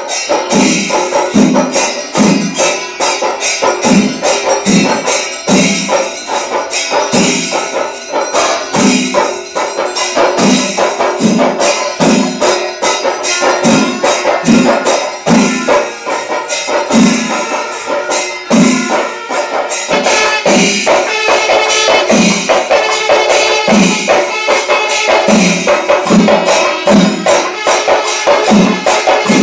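Percussion-led music: a low drum stroke about once a second under constant jingling cymbals, with some held tones.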